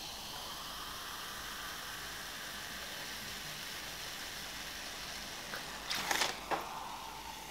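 Carbonated cola poured from a plastic bottle into a glass, a faint steady fizzing hiss. About six seconds in, a few short sips from the glass.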